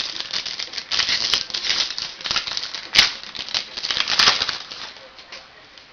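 Foil trading-card pack wrapper being crinkled and torn open and the cards handled: a busy run of crinkles and sharp crackles that thins out near the end.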